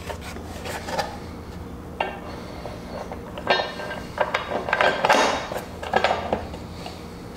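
Metal bolts and flat washers clinking and a plastic toolbox knocking against its metal mounting bracket as it is set in place: a scatter of short clinks and knocks.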